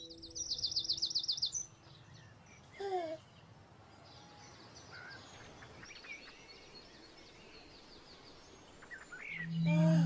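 Birdsong ambience: a fast, high trill in the first second and a half, a loud sliding call about three seconds in, then faint scattered chirps. A low, steady chime-like tone comes in just before the end.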